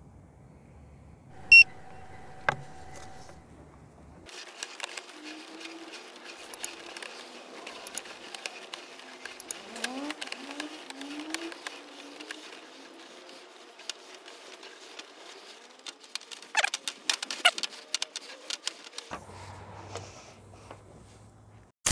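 A short electronic beep from the inspection monitor as its distance counter is zeroed. This is followed by a long run of scraping, ticking and knocking as the SeeSnake push cable is fed by hand into the pipe, with a few brief squeaks and some sharper clicks near the end.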